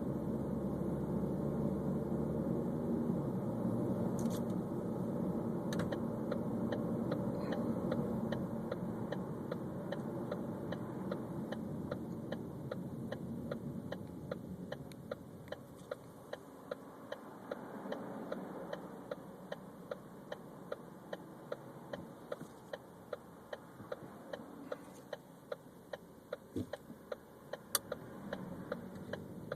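Inside a 2013 Ford Focus: steady rumble that dies down about halfway through, with a regular ticking or rattling about two times a second, part of the grinding/rattling noise the owner is recording.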